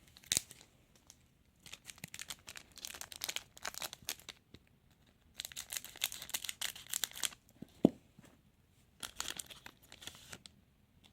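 A trading-card packet wrapper being torn open and crinkled, in three stretches of crackling, with a sharp snap near the start and another about eight seconds in.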